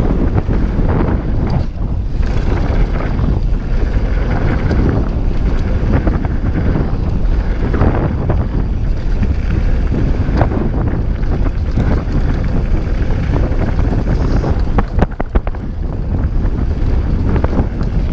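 Wind rushing over the action-camera microphone as a Scott Voltage mountain bike rolls fast down a dry dirt trail, with tyre noise and the bike rattling over bumps. A cluster of sharp clacks comes about fifteen seconds in.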